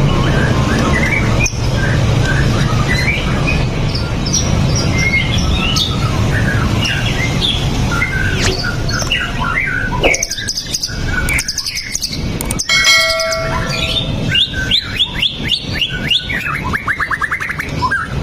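White-rumped shamas (murai batu) singing a dense, layered song of quick varied whistles, chatters and trills. Near the middle comes one clear held whistle, and in the second half fast runs of rising notes. A low steady hum lies under the first half.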